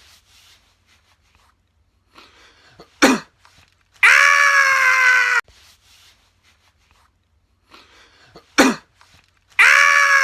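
A person's sharp, painful sneeze, after a few short inhales, followed a second later by a loud, held, high-pitched cry whose pitch falls slightly, lasting about a second and a half. The whole sequence then repeats: a second sneeze, and a second cry starting near the end.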